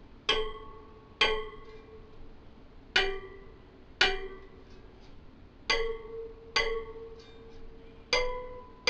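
Taut spokes of a freshly laced 36-spoke hub-motor wheel being plucked by hand one after another, about eight clear plucks with a few fainter ones between. Each rings out as a short note, the notes differing slightly in pitch from spoke to spoke as their tension differs.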